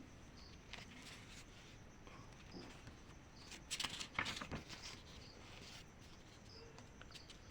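Faint background with short high chirps repeating about once a second, typical of an insect such as a cricket. A brief cluster of clicks and rustles comes a little past the middle and is the loudest sound.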